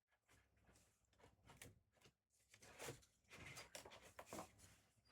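Near silence with faint, scattered rustling and soft handling noises, growing a little busier in the second half.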